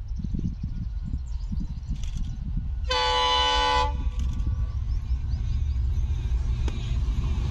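Diesel locomotive horn sounding one blast of about a second, a few seconds in, over the low rumble of an approaching diesel goods train that grows louder.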